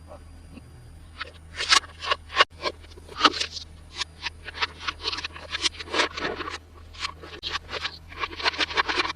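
Toy packaging being handled and opened, with irregular rapid scrapes and crinkles starting about a second in and continuing densely.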